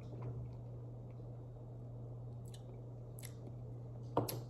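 Faint wet mouth clicks and lip smacks of someone tasting a hot sauce, over a steady low hum. A sharp knock near the end.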